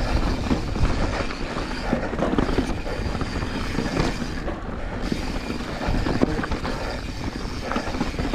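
Mountain bike riding down rocky dirt singletrack: tyres crunching over loose stones and the bike rattling with many small irregular clicks, over a constant low rumble of wind on the microphone.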